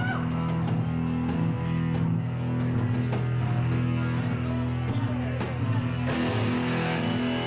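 Rock band playing live: loud electric guitars and bass holding heavy sustained notes over drums, with cymbal and snare hits cutting through.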